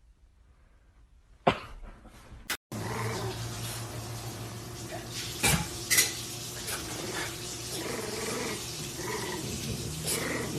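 Two sharp knocks, then a dog growling over a steady background noise, with a few clicks.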